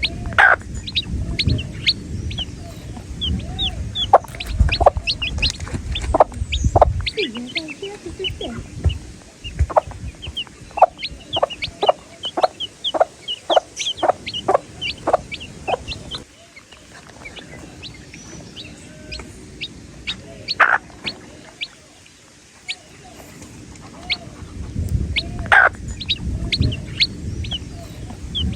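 A brood of baby chicks peeping: many short, high-pitched cheeps, mostly falling in pitch, coming rapidly and overlapping, with now and then a louder call. A low rumble sits under them for the first several seconds and again near the end.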